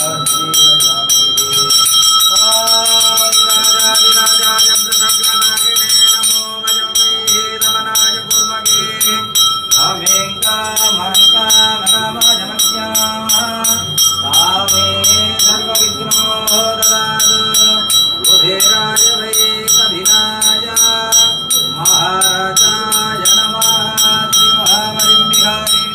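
Temple bell ringing continuously over devotional music: a melody with a steady rhythmic beat, accompanying an aarti flame offering.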